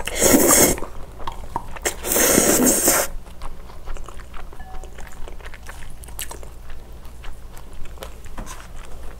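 Two loud slurps of spicy cold noodles (yeolmu bibim-guksu), the second longer at about a second, followed by close-miked chewing with small wet clicks.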